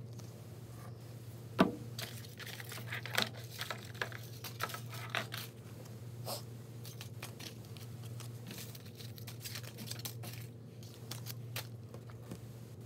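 Paper and craft materials handled on a wooden tabletop: one sharp knock about one and a half seconds in, then a few seconds of light clicks and crinkling, fainter near the end, over a steady low hum.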